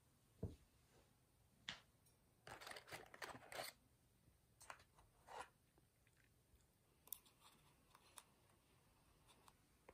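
Faint, scattered crinkling and rustling with a few short clicks, densest about a third of the way in, over a low hum.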